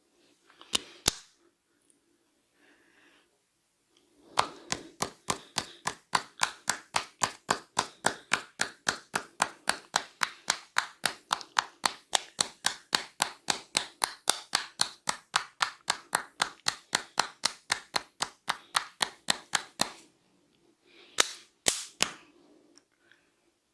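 Rapid, even hand slaps on the head, about four a second for some fifteen seconds: a barber's clapping, tapping strokes in a head massage. A few single sharp cracks come before and after the run.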